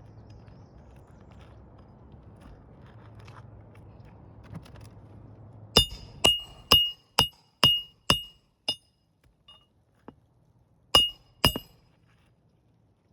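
Hammer driving a roofing nail into a shingle: a run of about seven sharp, ringing blows at roughly two a second, then two more a couple of seconds later.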